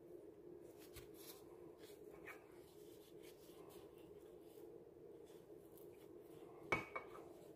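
Faint scraping and light ticks of a metal spoon pushing cheese filling onto a sambusa pastry sheet over a steady low hum. Near the end there is a sharp tap, then a second smaller one.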